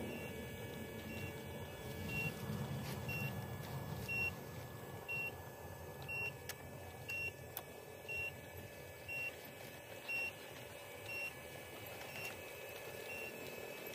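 Travel alarm of a radio-controlled Volvo tracked excavator, a short high beep repeating about once a second while the machine moves, over a low rumble.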